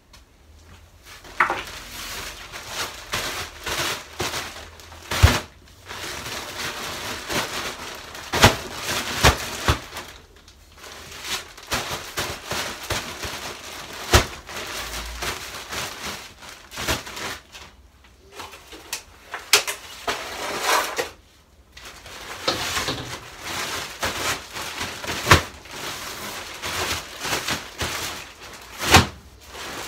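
Plastic compost grow bags being lifted, shaken and handled, their plastic crinkling and the compost inside shifting. Thumps come every few seconds as the bags are banged down on end to loosen the packed compost.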